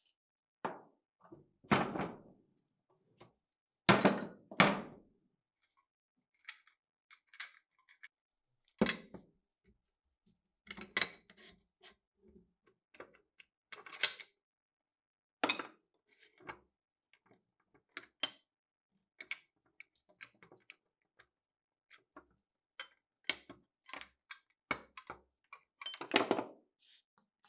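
Scattered metal knocks, clinks and short scrapes from a hand tool and gloved hand working at a rusted Thompson submachine gun receiver. The loudest come about two and four seconds in and again near the end.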